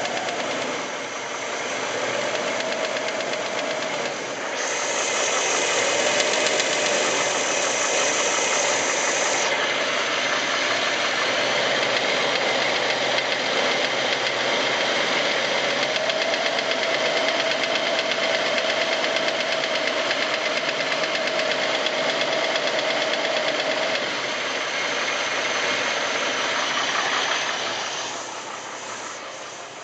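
Jeep Wrangler engine running in gear with a loud rhythmic knock from the top of the engine, which the owner hears only in gear, alongside heavy blow-by. It gets quieter near the end.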